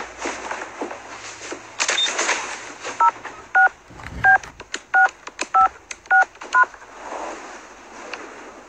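Telephone handset's touch-tone keypad dialling a number: seven short beeps, each a two-note tone, about one or two a second, with a brief rustle of the handset a second or so before the first key.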